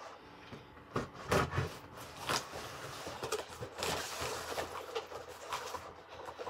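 Packaging being handled during an unboxing: irregular rustling and scraping with a few knocks and clicks, busiest from about a second in.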